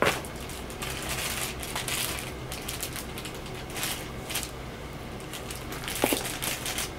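Rustling and handling of a soft cloth hat and paper packaging as the hat is pulled on and items in a cardboard box are moved, with scattered light clicks and a low steady hum underneath.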